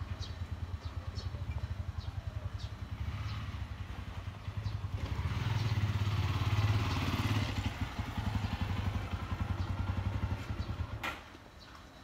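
An engine running with a rapid, even low pulsing, growing louder in the middle and then cutting off about a second before the end.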